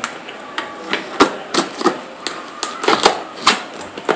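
Irregular sharp clicks and knocks of a tape-wrapped parcel being handled and worked at with a knife to cut it open.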